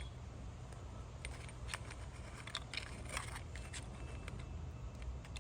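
Faint scattered clicks and scrapes of hands working the parts of a Byrna SD launcher while fitting its CO2 cartridge, over a low steady hum.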